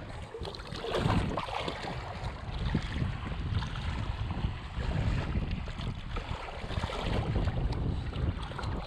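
Wind buffeting the microphone, with water washing at the shoreline: a steady, gusting rush without distinct events.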